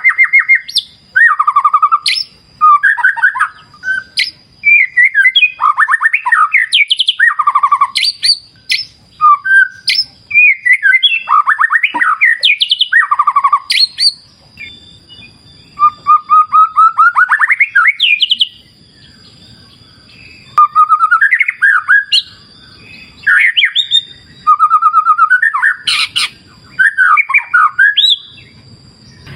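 White-rumped shama (murai batu) singing loudly in varied phrases, with fast trills and rising runs of repeated notes broken by short pauses. A faint steady high-pitched tone runs underneath.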